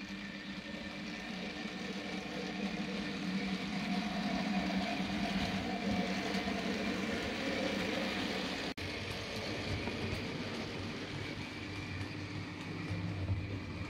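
OO gauge model locomotive running along the track hauling a short train of wagons, its electric motor whirring steadily with wheel-on-rail noise. The sound drops out for an instant about nine seconds in, after which a lower hum takes over.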